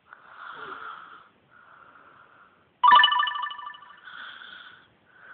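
A woman snoring in her sleep: a series of wheezy, whistling breaths about a second each, with a much louder, sudden whistling snort about three seconds in that fades over about a second.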